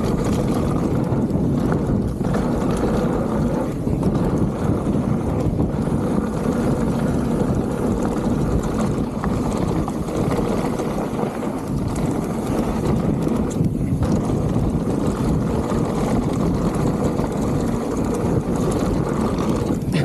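Wind buffeting an action camera's microphone over the rumble of mountain-bike tyres and frame on a dirt trail during a descent: a steady, loud rumbling noise.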